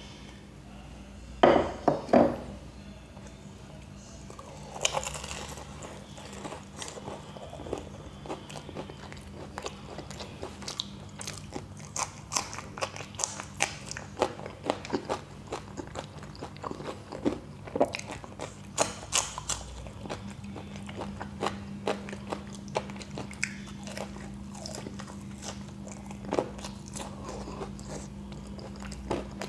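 Close-up biting and chewing of deep-fried samosas: the crisp pastry crunching in many quick, irregular crackles. A few loud knocks come close together about a second and a half in.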